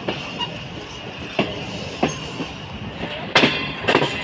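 Passenger train running along the track: a steady rumble with sharp clacks as the wheels cross rail joints, a few at first, then louder and closer together after about three seconds.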